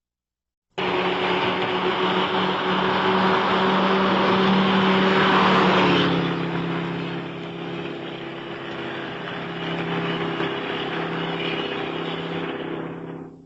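Car engine running hard, easing off at about six seconds to a quieter steady run. Starts suddenly about a second in and cuts off abruptly near the end.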